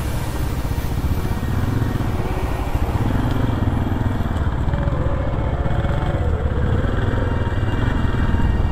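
Enduro motorcycle engines chugging at a steady, low trail pace; the nearest is a Suzuki DR-series single-cylinder four-stroke.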